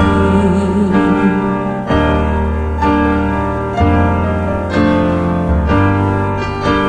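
Instrumental backing track of a slow acoustic ballad: piano playing sustained chords over a bass line that moves to a new note every second or two, with no singing.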